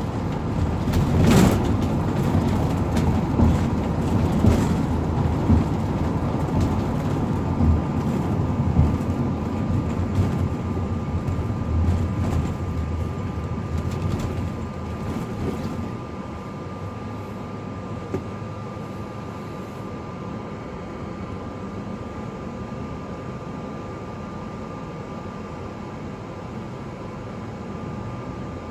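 Cabin noise inside a Ford shuttle bus: engine and road rumble with rattles and bumps while it drives. About halfway through it turns quieter and steady as the bus slows for a red light and idles, with a thin steady whine.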